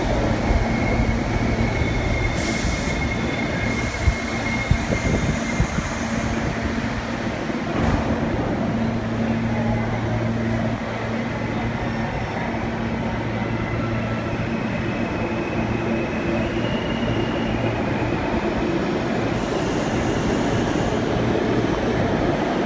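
New York City subway train running through the station: a steady traction-motor hum with thin, high wheel squeal, and a few sharp clanks about four to six seconds in.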